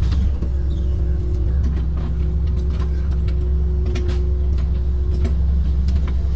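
Kobelco amphibious excavator's diesel engine running steadily under load, with a steady whine above its drone. Scattered sharp cracks and snaps as the bucket tears through brush and branches on the bank.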